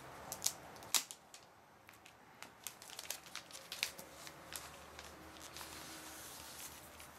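Wrapping being pulled off a new keyboard: scattered crinkles and sharp ticks, the two loudest clicks within the first second.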